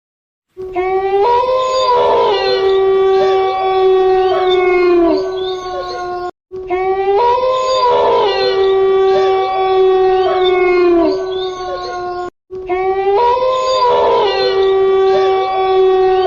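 A canine howl: one long, steady, held note with a short rising start, falling off in pitch at its end. It plays three times over, identical each time, with a brief break between.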